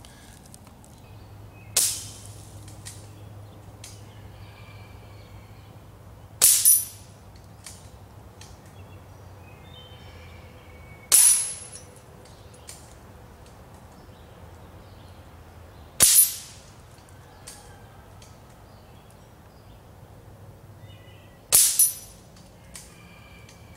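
Moderated Diana Stormrider Gen 2 PCP air rifle fired five times, about five seconds apart, each a sharp crack. The last four shots are each followed at once by a short metallic ping of the pellet hitting a steel spinner target.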